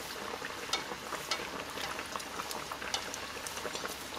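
Empanadas deep-frying in hot oil: a steady bubbling with scattered crackles and pops.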